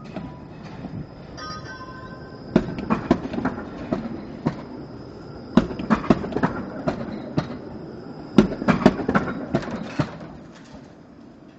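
Bombardier Flexity Outlook streetcar rolling past close by, its steel wheels clattering over the track in three bursts of sharp clacks over a steady rumble.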